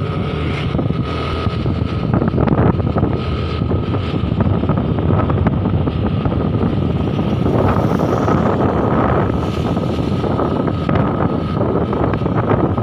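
Wind buffeting the microphone of a moving motorcycle, over the steady running of its engine, with a faint steady high whine.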